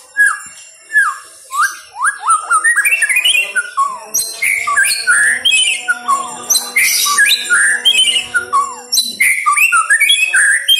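White-rumped shama singing a loud, varied song of rich whistles, many sliding down in pitch, mixed with quick chattering notes, coming faster and denser from about two seconds in.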